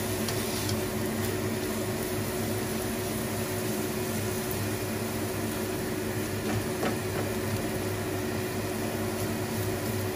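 Steady motor hum with a faint hiss. Now and then a light click as a plastic spatula stirs shredded carrots in a dry non-stick frying pan.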